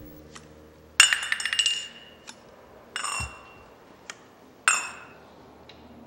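Chrome lug nut covers on a heavy truck wheel being worked off with pliers: three sharp metallic clinks with a short ring, about a second, three seconds and nearly five seconds in, the first rattling on briefly, with light ticks between.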